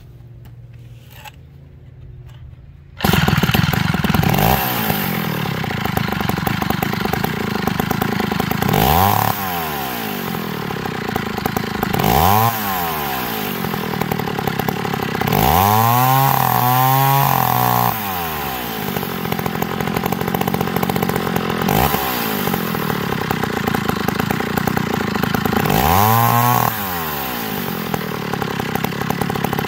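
A McCulloch 250 two-stroke chainsaw fires up about three seconds in and runs at idle. Its throttle is blipped several times, each time a quick rise and fall in engine speed, with a run of three revs in quick succession near the middle.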